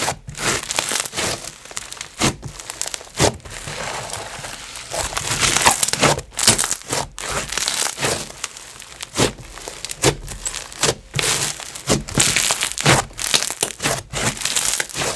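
Clear-glue snow fizz slime being squished and stretched by hand: a dense sizzling crackle broken by many sharp bubble pops.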